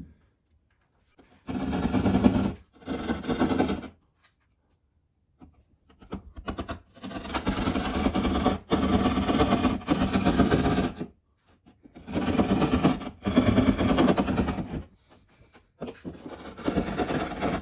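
Hand drywall saw sawing back and forth through drywall to cut out an opening for an outlet box. It rasps in several stretches of rapid strokes, with short pauses between them.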